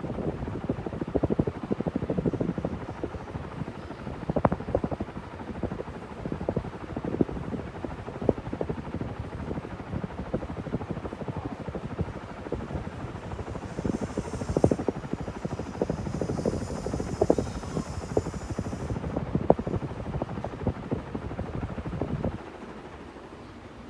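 KDK B56YK industrial ceiling fan running, its air stream buffeting the microphone in a loud, irregular, choppy rumble that cuts off suddenly near the end.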